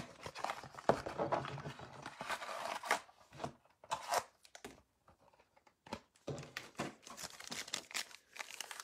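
Topps Chrome hanger box of trading cards being opened by hand: irregular crinkling and tearing of the packaging, with a quieter stretch for about two seconds in the middle.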